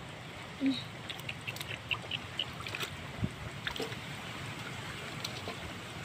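Hands groping through shallow muddy water and wet mud, giving small scattered splashes, drips and squelches over a steady low hiss.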